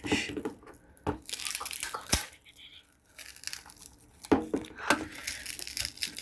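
The shattered glass screen of a Samsung Galaxy A5 (2016) crackling and crunching as it is peeled away from the phone, with a few sharp snaps.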